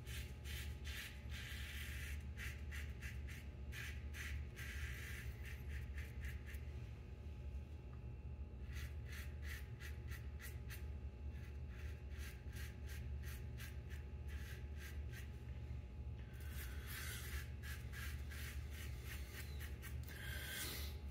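Dorco PL-602 plastic double-edge safety razor scraping through lathered stubble on the neck in runs of short quick strokes, with brief pauses between runs, over a steady low hum.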